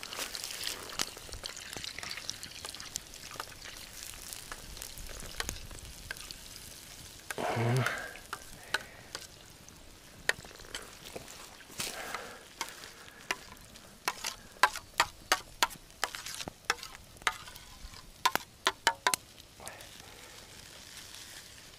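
Tomato paste frying in butter in a pan over a campfire, sizzling steadily as it is stirred. A brief low sound comes about seven seconds in, and a run of sharp clicks and taps follows from the middle to near the end.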